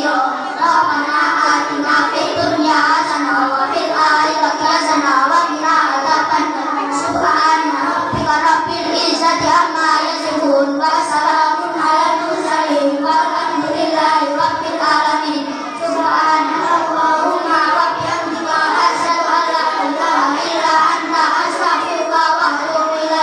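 A group of children singing together, amplified through microphones.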